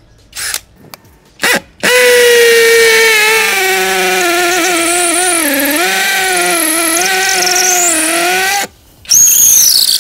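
WORX WU369 cordless brushless hammer drill in hammer mode, drilling a 10 mm masonry bit into concrete. It gives a motor whine over a hammering rattle, and its pitch sags and wavers under load for about seven seconds. Two short clicks come before it starts. It stops briefly, then runs again near the end.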